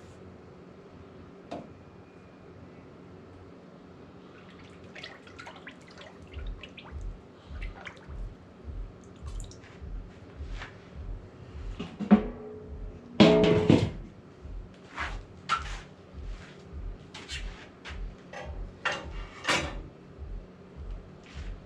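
Background music with a steady low beat, about two beats a second, coming in about six seconds in, over scattered sharp knocks and clicks, the loudest cluster about halfway through.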